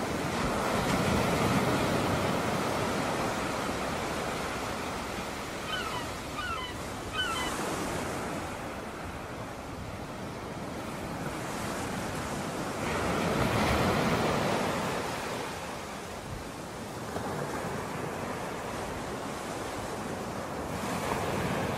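Small waves breaking and washing on the shore, the rush swelling and fading slowly in long surges. A few short high chirps come about six to seven seconds in.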